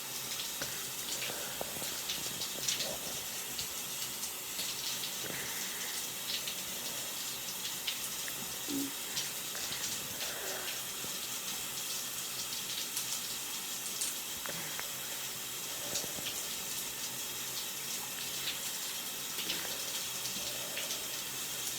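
Faint noisy breaths from a person with stridor every few seconds, under a steady rushing hiss like running water.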